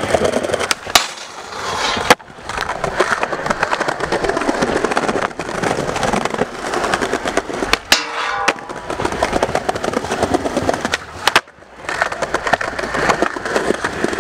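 Skateboard wheels rolling over stone paving slabs, with a few sharp clacks of the board hitting the ground, the rolling noise dropping out briefly after some of them.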